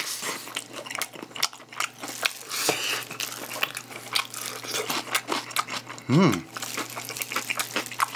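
Close-miked crunching and chewing of sauced fried chicken, with many short sharp crunches and the crinkle of a thin plastic glove. About six seconds in there is a brief hummed sound from the eater.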